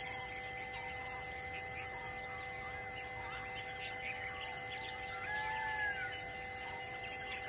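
Outdoor ambience of several birds chirping and calling, over a high insect buzz that comes and goes in stretches of a second or two. Underneath runs an even drone of steady tones.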